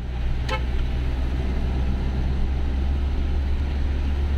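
Bus motorhome driving, heard from inside the cabin: a steady low engine and road rumble. A short high-pitched sound cuts in briefly about half a second in.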